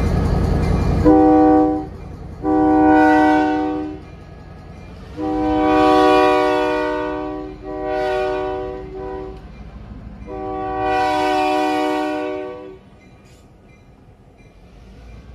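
Diesel locomotive's air horn sounding five blasts as the engine rolls slowly past close by, the third and fifth blasts the longest, blown for a grade crossing. The locomotive's diesel engine is loud for about the first second; after the horn stops only a quieter rumble of the engine and wheels is left.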